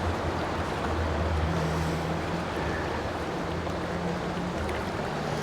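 Fast, shallow stream water rushing steadily over stones.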